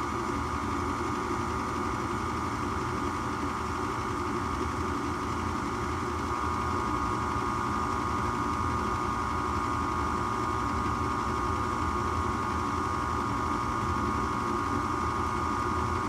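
Rheem gas furnace's draft inducer motor running with a steady hum and a steady whine, during an ignition trial with the gas valve shut off.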